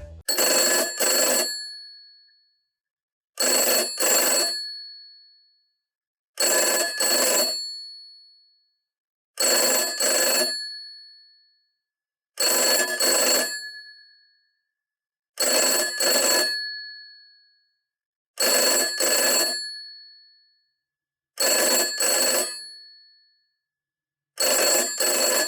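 Old telephone bell ringing in a double-ring pattern: two quick rings, then a pause, repeating about every three seconds, nine times. Each pair of rings fades out before the next.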